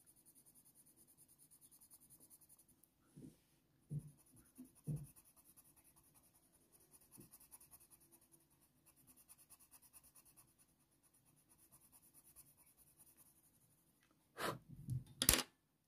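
Faint scratching of a Faber-Castell Polychromos coloured pencil shading on hot-press watercolour paper. There are a few soft taps a few seconds in, and a couple of louder short sounds near the end.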